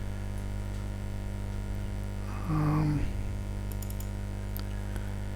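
Steady electrical mains hum, with a short murmured "hmm" about halfway through and a few faint clicks, like a computer mouse, near the end.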